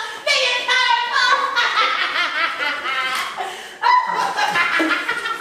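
Children's voices laughing and chattering over one another, with a sudden louder cry about four seconds in.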